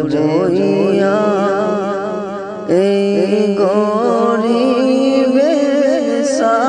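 Background music: a Bengali Islamic devotional song, a voice singing long, winding held notes over a steady drone. A new, louder phrase comes in a little under three seconds in.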